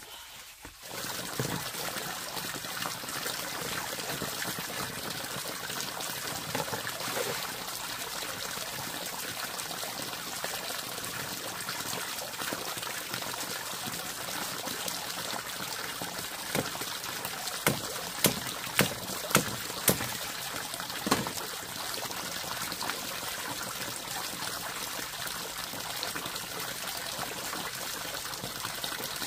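Water running in a steady trickle, starting about a second in, with a handful of sharp knocks in the middle.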